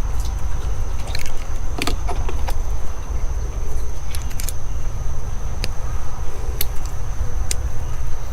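Small metal clicks and light jingling as a spark plug and a feeler gauge set are handled to check the plug's gap, over a steady low rumble.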